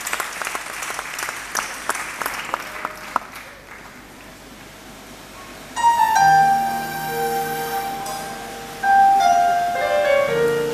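Audience applause fading out over the first few seconds, then a keyboard plays held chords, one coming in about six seconds in and another about nine seconds in.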